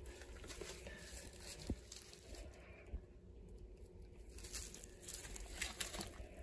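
Plastic stretch wrap crinkling and rustling as a wrapped, cardboard-backed laptop screen lid is handled, with a few small taps. The sound is faint.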